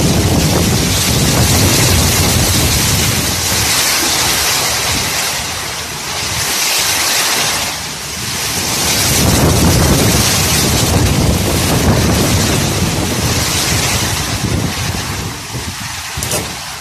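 Typhoon wind and heavy driving rain: strong gusts buffet the microphone with a deep rumble over a steady hiss of rain. The wind comes in two long surges with a lull between them, and eases near the end.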